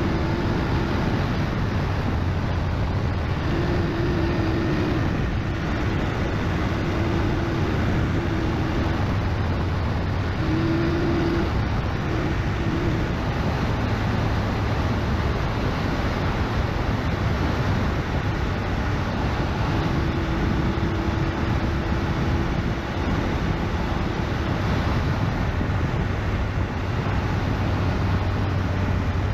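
BMW GS motorcycle being ridden at a steady pace: its engine note runs under a constant rush of wind and road noise.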